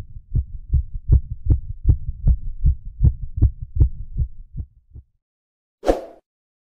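Low, evenly spaced thumping pulse, about two and a half beats a second, fading out about five seconds in. A short whoosh follows near the end, as an outro sound effect.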